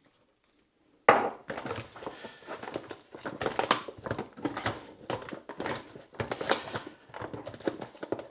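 Kitchen food-prep handling noise from chicken being seasoned: irregular rustling and crinkling with light knocks, starting about a second in.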